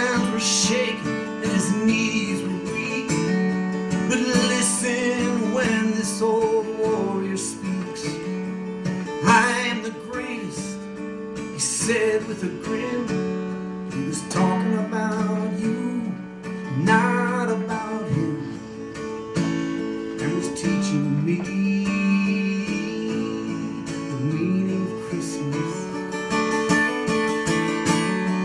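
A man singing a folk song to his own strummed acoustic guitar, performed live.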